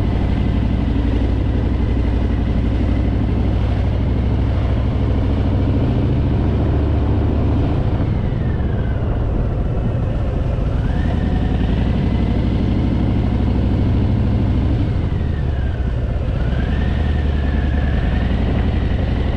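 Harley-Davidson Fat Boy's V-twin engine running as the motorcycle is ridden, its note shifting a couple of times as it eases off and picks up again.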